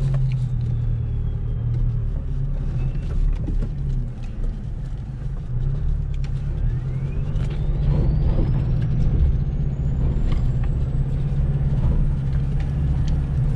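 A four-wheel-drive's engine running steadily at low speed, heard from inside the cabin, with scattered knocks and rattles as it crawls over a rough track. From about halfway, a faint whine rises slowly in pitch.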